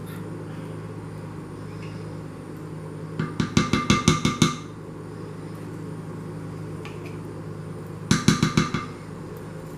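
Two quick runs of sharp, ringing taps, several a second: a can of sweetened condensed milk and a spatula knocked against the rim of a glass mixing bowl to shake out the thick milk. The first run starts about three seconds in; a shorter one comes near the end. A steady low hum lies underneath.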